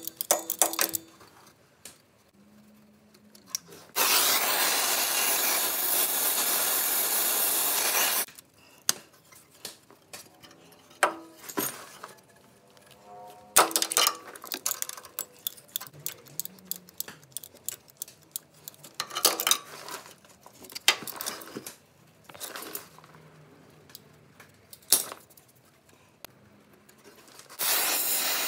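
An oxy-fuel cutting torch hisses steadily, heating a seized, rusted exhaust-manifold stud in a cast-iron cylinder head so that it can be turned out. There is a four-second burst of the same hiss early on, then scattered clicks and clinks of metal tools against the rusty studs, and the hiss starts again near the end.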